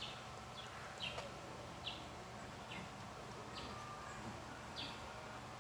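A bird calling faintly over and over, a short high chirp that falls in pitch, about once a second.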